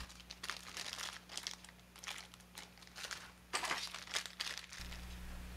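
Clear plastic bag crinkling in irregular rustles as it is handled with the cable packed inside, stopping near the end.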